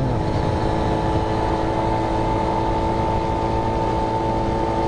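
Honda Monkey's 50 cc four-stroke single-cylinder engine running at a steady cruising speed, its pitch unchanging, with rumbling wind noise on the microphone.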